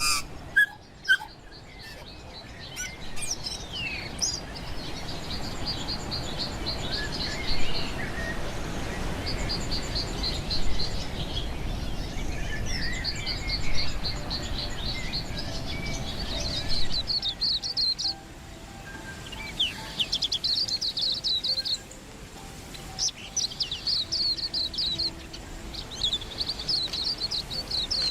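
Tui singing: repeated runs of rapid high chirps and trills, with a few sharp clicks near the start. A steady rushing noise sits underneath through the first half or so, then drops away.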